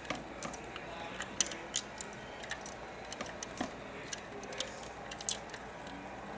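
Light, irregular clicks and taps of small parts handled by hand as a miniature bulb is fitted into an elevator push-button's socket.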